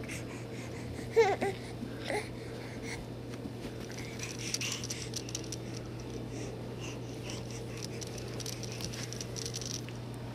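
Baby's short, loud vocal squeal with wavering pitch about a second in, then a shorter one a second later, followed by soft rustling and small pats, over a steady low hum.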